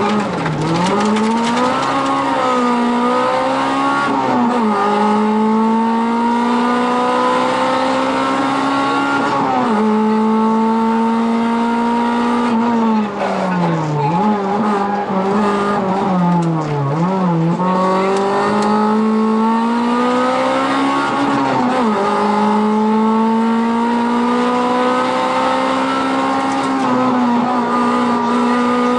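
Rally car engine heard from inside the cockpit, pulling hard through the gears: the pitch climbs steadily, then drops sharply at each upshift, several times over. In the middle the revs fall and dip repeatedly before climbing again.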